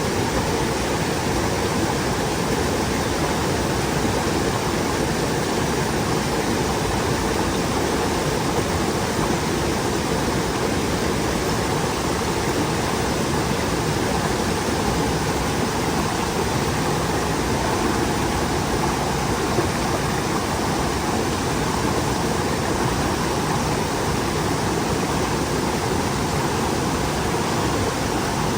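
Mountain stream water running over rocks: a steady, unbroken rushing and gurgling, fullest in the low and middle range.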